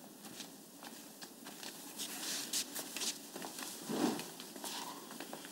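Faint rustles and small clicks over quiet room tone, with a brief louder low sound about four seconds in.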